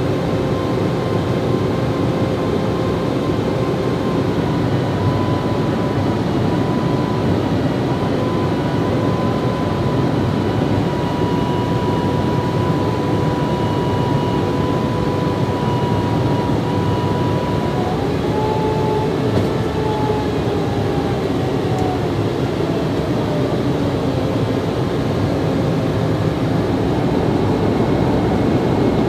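Steady jet aircraft noise heard from inside a tanker during in-flight refueling: a dense rush of engine and airflow with a steady high engine whine. A little past halfway, a second engine tone rises and then slowly sinks.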